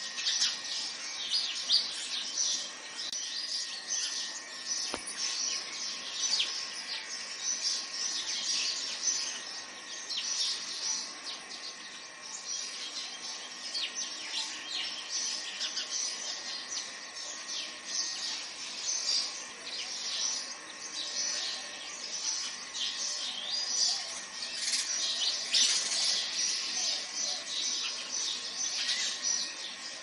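Small birds chirping constantly in a dense, overlapping chorus of short high chirps, over a faint steady high whine.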